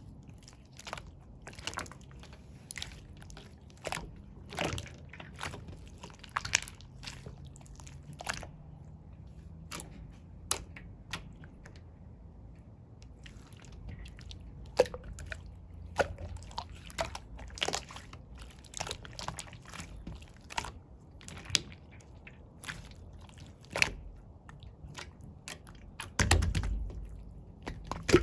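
Clear slime being squeezed and worked by hand, making irregular sharp clicks and wet pops, with a louder stretch of squishing near the end.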